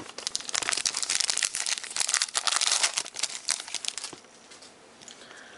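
Shiny trading-card pack wrapper crinkling and crackling as the pack is torn open and the cards pulled out, dying down about four seconds in.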